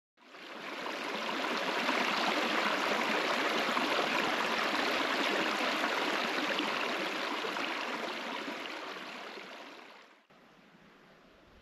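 Shallow stream running over rocks close to the microphone: a steady rush of water that fades in at the start and cuts off abruptly about ten seconds in, leaving only a faint background hiss.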